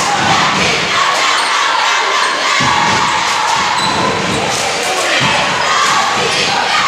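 Crowd in a packed school gymnasium, many voices talking and shouting at once, echoing in the hall. A few dull thumps come through, one about two and a half seconds in and another about five seconds in.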